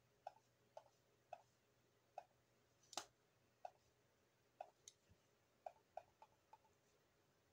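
Faint computer mouse clicks, about a dozen at irregular spacing, with one sharper, louder click about three seconds in.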